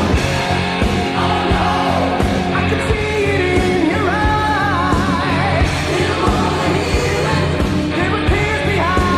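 Hard rock music: drums and a steady bass line under a lead vocal holding long, wavering notes, with the voice strongest in the second half.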